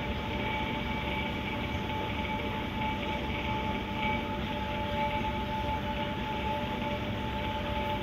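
Steady hum and hiss of aquarium aeration equipment, air pumps running and airstones bubbling in the fish tanks, with a constant mid-pitched whine over it.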